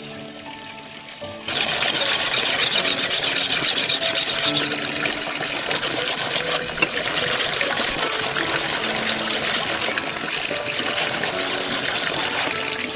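Background music with steady melodic notes, joined about a second and a half in by a loud, steady rushing hiss that becomes the loudest sound.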